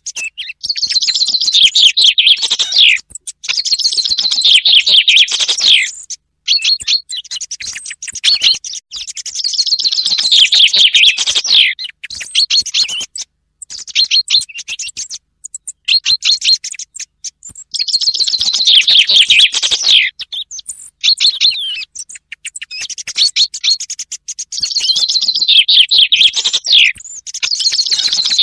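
Recorded chaffinch song playing as a hunting lure, mixed with a quieter song thrush. The chaffinch repeats its song every few seconds, each a rapid trill dropping into a flourish at the end, with shorter notes in between.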